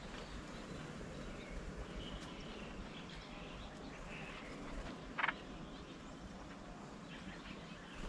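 Quiet open-air ambience over a low rumble, with a few soft bird chirps and one short, sharper bird call about five seconds in.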